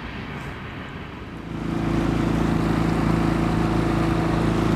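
Outboard motor on a small fishing boat, throttling up about a second and a half in and then running steadily at cruising speed, with water and wind noise over it.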